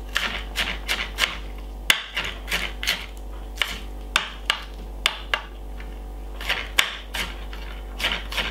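Chef's knife chopping spring onion on a glass cutting board: sharp, irregular knocks of the blade striking the glass, about two or three a second, the loudest about two seconds in. A low steady hum runs underneath.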